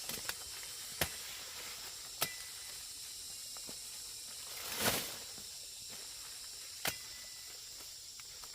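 A few sharp snaps at irregular intervals, with a longer, louder rustling crack about five seconds in, over a steady high hiss.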